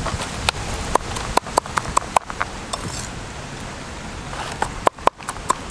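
Large knife chopping on a round wooden chopping block: a series of sharp knocks, a quick irregular run in the first two seconds and another near the end.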